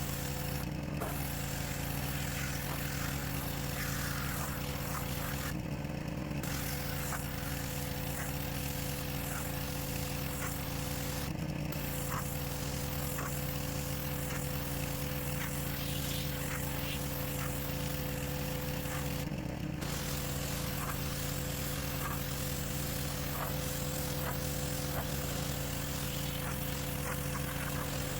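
Pressure washer running with a steady engine hum and the hiss of the water jet; the spray cuts out briefly four times while the engine keeps running.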